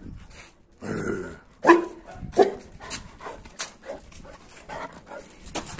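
Boerboel puppy making three short, loud calls during play, about a second in and then in quick succession, followed by scattered sharp clicks.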